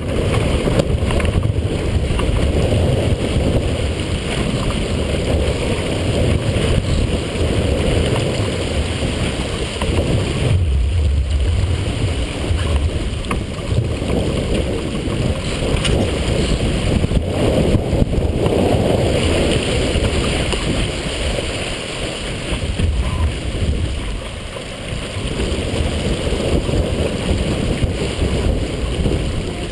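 Strong wind buffeting the microphone over the rush of water along the hull of a sailboat heeled under sail, rising and falling with brief lulls.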